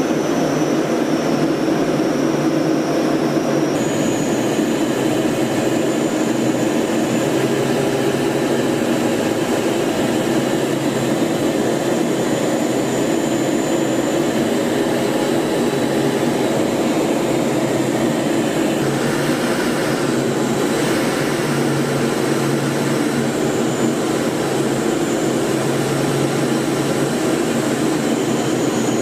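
Steady aircraft engine drone and rushing airflow heard from inside the cabin of an aircraft in flight, with a constant high whine over it. The tone of the drone shifts abruptly about four seconds in and again past the middle.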